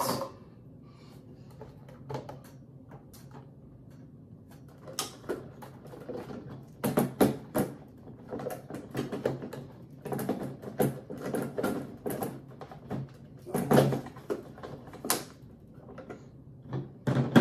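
Kitchen containers and utensils being handled: an irregular run of short clicks, knocks and clatter, starting about five seconds in.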